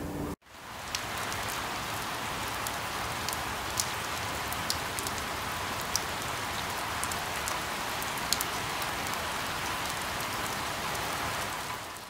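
Steady rain falling on leaves, an even hiss with scattered sharper drops, fading in about half a second in.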